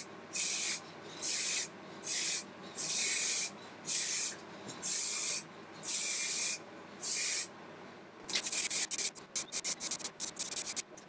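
Aerosol spray can spraying in a regular run of short hissing bursts, roughly one every second, then a quicker, stuttering series of very short spurts near the end.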